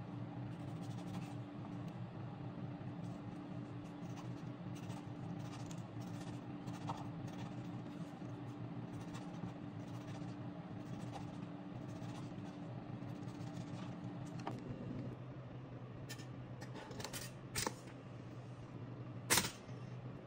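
A kitchen knife slicing through a tomato, with soft ticks of the blade meeting a wooden cutting board over a steady low hum. Past the middle the hum changes, and a few sharper clicks follow, the loudest about a second before the end, fitting the pop-up toaster releasing its toast.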